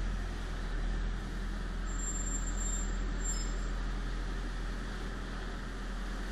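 Tractor-powered straw blower running steadily, its engine and blower fan making a constant low hum as it blows bedding straw across the pen.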